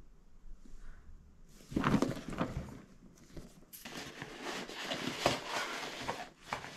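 Wrapping paper rustling and crinkling as a present is unwrapped by hand, starting about one and a half seconds in and going on as a run of crackles.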